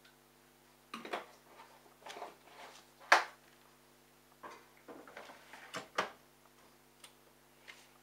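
Irregular clicks and knocks from handling a Bosch Logixx front-loading washing machine while it is being set up before the cycle starts, about eight in all, the sharpest about three seconds in. A faint steady hum runs underneath.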